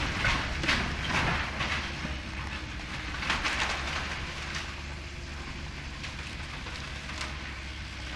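Heavy demolition machinery with its diesel engine running steadily, and irregular crunching and clattering of debris, heaviest in the first two seconds and thinning out after about five seconds.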